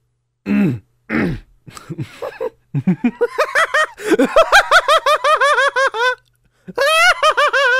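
Hearty voiced laughter: a few short chuckles first, then a long run of quick, evenly repeated 'ha's, a brief break, and a second burst of laughing near the end.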